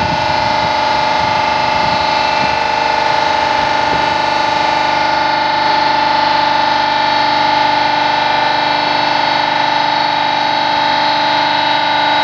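Motor of a press machine running steadily, with a loud, unchanging whine and many overtones.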